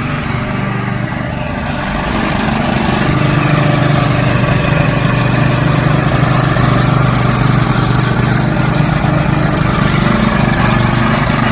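Gas-engine power trowels running steadily while finishing a concrete floor. The engine drone grows louder over the first few seconds, then holds.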